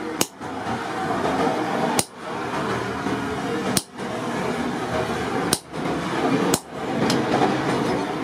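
Hammer blows on a steel punch driven through the red-hot flattened end of a rebar on an anvil, punching a hole. The sharp strikes come several times, a second or two apart, over a steady background noise.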